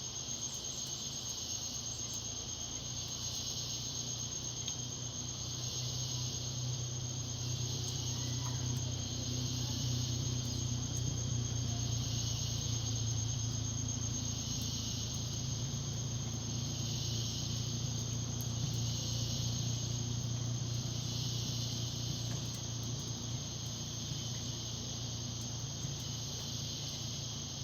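Insects shrilling in chorus: a steady high-pitched tone with a second, wavering band that swells and fades about every two seconds, over a low steady hum.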